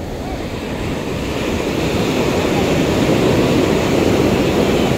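Sea surf washing up the beach and a wave breaking close by, the rush of water growing louder over the first couple of seconds and staying loud.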